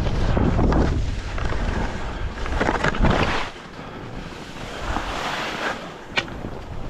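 Skis swishing through snow in a few surging turns, with wind rumbling on the microphone until about halfway through, and one short sharp click near the end.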